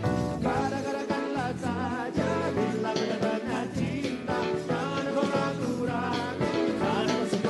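Live pop band music with a singer's voice weaving a wavering melodic line over sustained bass and chords.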